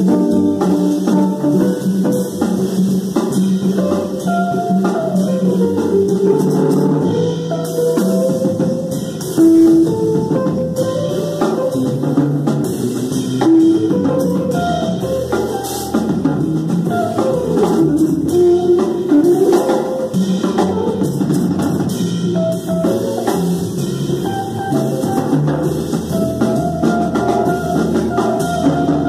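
Small jazz group playing live: hollow-body electric guitar and upright bass over a drum kit keeping time on cymbals and drums.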